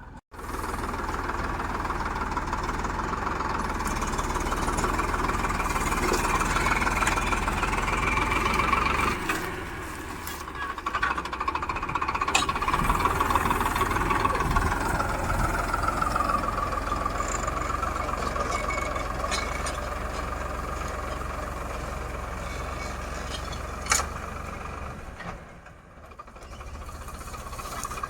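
Farmtrac 6055 tractor's diesel engine running steadily, easing off about ten seconds in and then picking up again. There is one sharp click about three-quarters of the way through.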